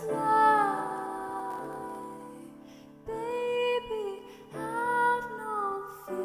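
Slow, gentle song: a soft wordless voice holding long notes that slide down in pitch over a sustained backing, with a quieter stretch about two to three seconds in before the voice comes back.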